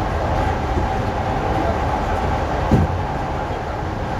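ED4M electric multiple unit running under traction power: a steady rumble with a constant high tone through it. One short knock comes about two-thirds of the way through.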